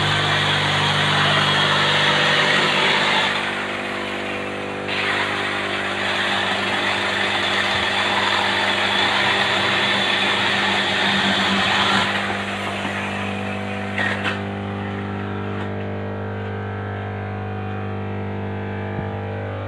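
Workshop machine processing agarwood, its motor humming steadily. A loud rasping runs while wood is worked in it, once up to about three seconds in and again from about five to twelve seconds in. After that the machine runs on without load, with a couple of small knocks.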